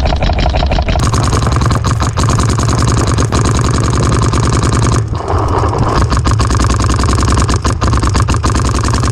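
Electronic paintball markers firing in rapid strings, a dense run of sharp shots at roughly a dozen a second.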